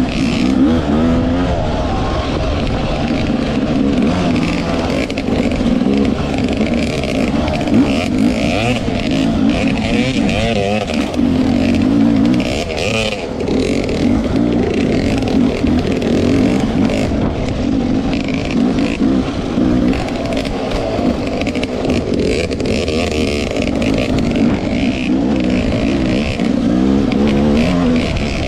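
Off-road dirt bike engine running hard and revving up and down over and over as it is ridden along trails.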